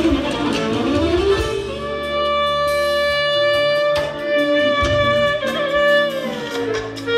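Festive music with a low beat. The melody slides through a short phrase, then holds one long note for about four seconds before dropping away.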